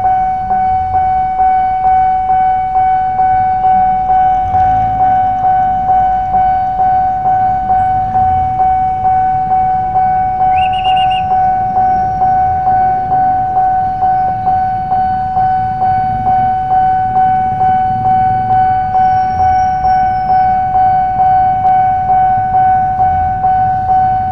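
Railway level-crossing warning bell sounding a steady ringing tone in quick, even pulses, the signal that a train is coming. A short higher beep cuts in briefly about ten seconds in, over low traffic rumble.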